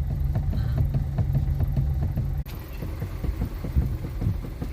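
Nissan Versa idling, with repeated irregular knocks from the steering as it is worked. The steady idle drone cuts off abruptly about two and a half seconds in while the knocking goes on. The knock is later traced to a loose, worn joint on the steering shaft (the 'trizeta').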